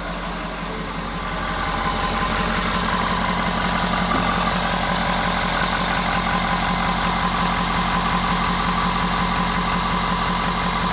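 Ford 6.7L Power Stroke V8 turbodiesel idling steadily with its hood open. It was freshly started and is not yet warm. It gets a little louder over the first couple of seconds, then holds even.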